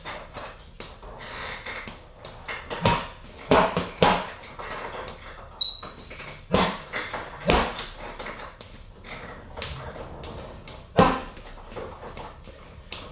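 Gloved punches landing on a hanging heavy bag: irregular single thuds and short pairs, the hardest about eleven seconds in, with a brief high squeak about six seconds in.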